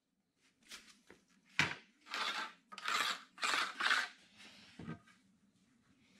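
One knock, then five or six short scraping rubs as red oak boards and a straightedge are handled on a workbench.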